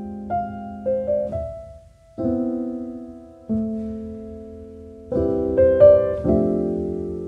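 Background music: slow, gentle piano chords, each struck and left to ring and fade before the next.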